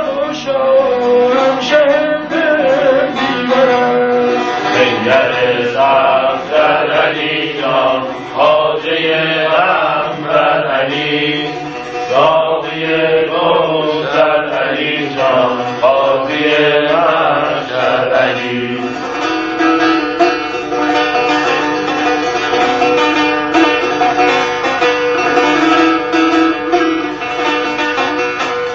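Kurdish tanbur, a long-necked fretted lute, being played. Through the middle come fast, dense strumming strokes, and then about two-thirds of the way in the playing settles into steadier, longer-ringing notes.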